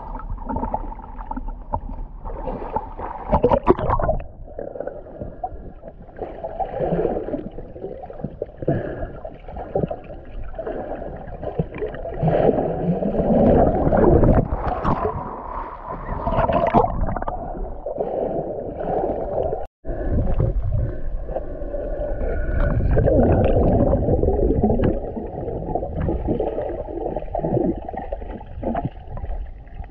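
Lake water sloshing and bubbling around a GoPro at and below the surface, heard muffled with irregular swells of churning and gurgling. There is a very short dropout about two-thirds of the way through.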